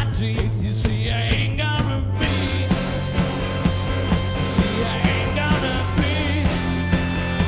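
Stoner blues-rock band playing live: electric guitar, bass and drums on a steady beat. Sung vocals run through the first two seconds, then the guitar carries on with long held notes over the rhythm section.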